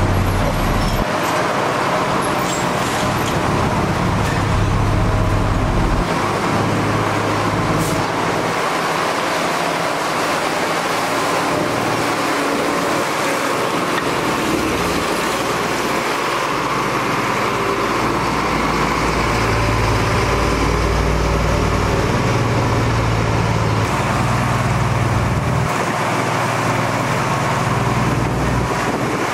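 Engines of heavy road construction machinery running steadily, their low hum growing louder and softer, with street traffic noise.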